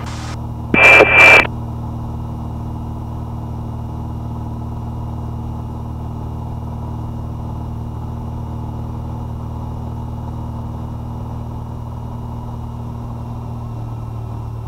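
Cessna 172's engine and propeller droning steadily in cruise, heard inside the cabin. About a second in there is a short loud burst of noise with a high tone.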